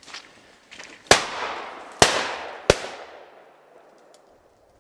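Three shotgun shots in about a second and a half, each trailing off in a long echo.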